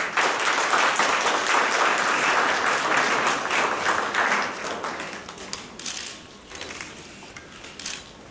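Audience applauding as a decoration is presented: steady clapping from the start that thins out after about five seconds into scattered claps.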